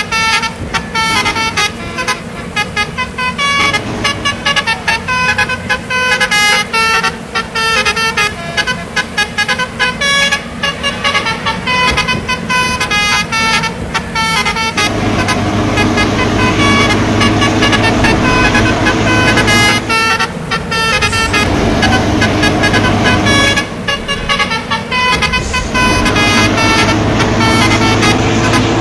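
A bus's multi-tone musical air horn sounds a rapid run of changing notes. After about fifteen seconds it gives way to steadier held tones over the bus's engine, which rises in pitch as it pulls away.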